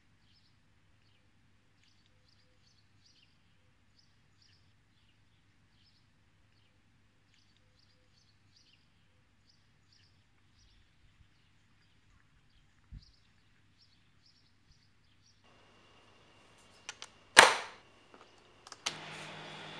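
Faint bird chirps over a low hum, then a guitar amplifier being switched on and plugged into: a few clicks, one loud pop near the end, and the amp's steady hum and hiss.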